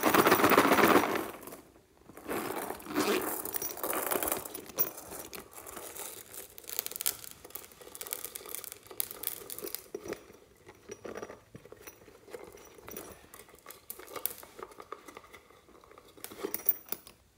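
Hands squeezing and handling a soft pink plastic cartoon toy, giving crinkling and crackling sounds. A loud burst comes in the first two seconds, then a long run of smaller crackles and clicks.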